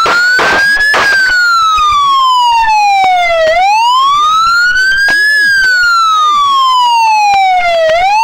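Police car siren in a slow wail, its pitch rising for about two seconds and falling for about two and a half, twice over. A few sharp cracks sound over it in the first second.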